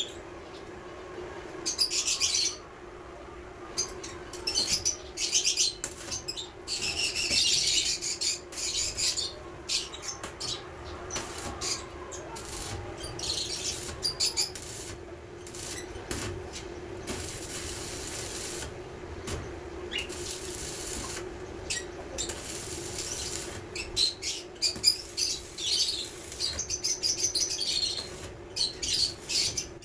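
Electric arc welding on a steel cage frame: the arc crackles in repeated bursts of a second or two with short pauses between welds, over a steady hum.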